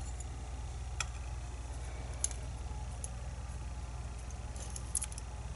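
A few sharp, isolated metallic clicks of small lock pins and parts being handled during disassembly of a lock core, over a steady low hum.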